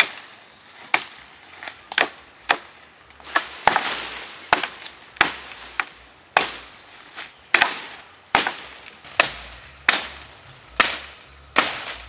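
Axe chopping into a yellow bamboo culm: a steady run of sharp, hollow-wood chops, about two a second.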